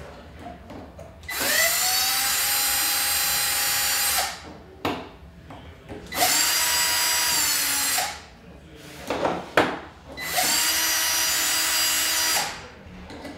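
Cordless drill/driver turning screws in three runs of about two seconds each. Each run spins up quickly to a steady whine. Short clicks and knocks fall in the pauses between runs.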